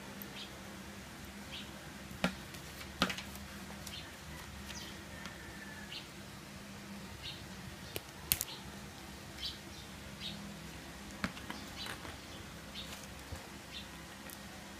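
Light knocks and clicks from a pen, a notebook and a phone being handled on a plastic tabletop, the strongest about 2, 3 and 8 seconds in, over a low steady hum, with faint short high chirps scattered through.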